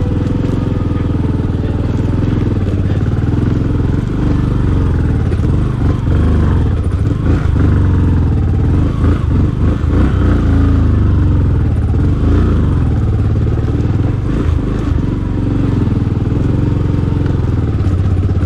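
Motorcycle engine running steadily at low speed while the bike rides over a rough cobbled stone trail, with scattered knocks and rattles from the bumps.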